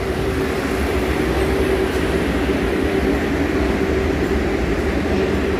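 New York City 6 subway train, a steady low rumble with a steady hum over it.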